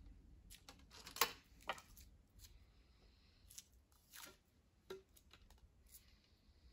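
A few faint, scattered clicks and rustles from a traditional bow and arrow being handled, as an arrow is taken up and nocked for the next shot.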